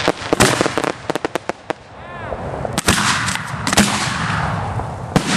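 Aerial fireworks going off: a series of sharp bangs, with a rapid string of reports about a second in, over a continuous crackling hiss.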